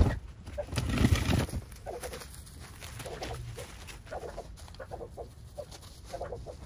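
A wheeled plastic trash cart thuds, then rustles and rolls briefly over the ground about a second in. After that a bird calls in short groups of notes, about once a second.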